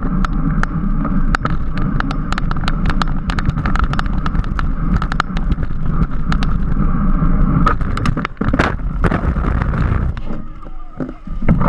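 Wind and road noise from a racing bicycle at speed, a steady rush with many sharp clicks and knocks; the rush drops off about ten seconds in.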